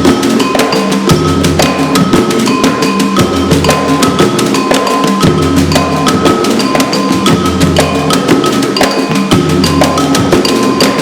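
Hand percussion played in a fast, dense, steady groove as a solo improvisation, over pitched accompaniment with a low bass note that recurs about every second and a half.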